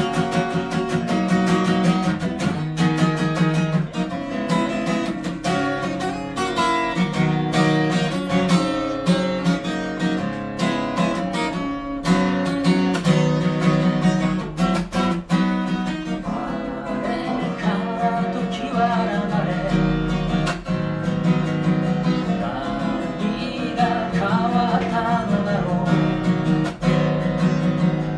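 Steel-string acoustic guitar strummed steadily in a live song, with a man's voice singing over it from about halfway through.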